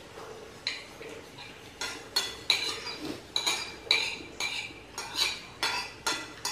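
Spoon clinking and scraping against a bowl while eating: light, sharp clinks about two a second, starting about a second in.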